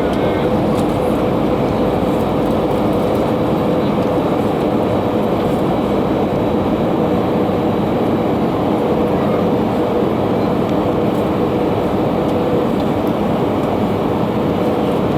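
Steady cabin noise inside an Airbus A320 in flight: a constant rush of engine and airflow noise with a steady hum running under it.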